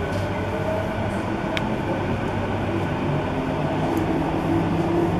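Delhi Airport Express metro train running, heard from inside the passenger car: a steady rumble and hum. A low motor tone steps up slightly in pitch in the second half as the train picks up speed.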